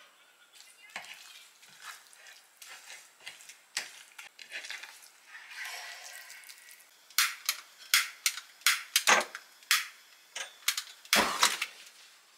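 Hands rubbing minced garlic and seasoning into raw meat fillets on a ceramic plate: soft rubbing and light taps. In the second half come a run of sharp, irregular clicks and knocks against the plate and countertop.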